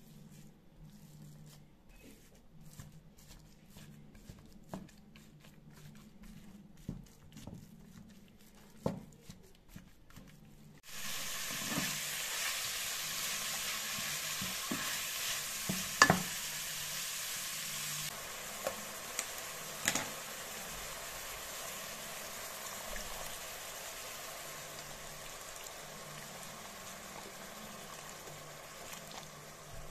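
Wooden spatula scraping and tapping as it breaks up raw ground beef in a frying pan. About eleven seconds in, a loud, steady sizzle of the beef frying starts abruptly, broken by a few sharp knocks of the spatula against the pan, and it slowly dies down toward the end.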